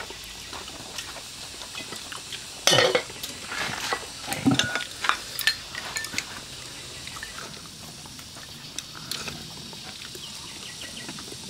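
A spoon scraping and clinking against a rice pot, working loose the crispy scorched rice crust from the bottom. The loudest scrapes come about three seconds and four and a half seconds in, among lighter scattered clinks.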